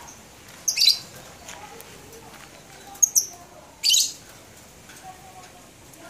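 Caged lovebirds giving three short, shrill squawks: one about a second in, then two more close together around three to four seconds.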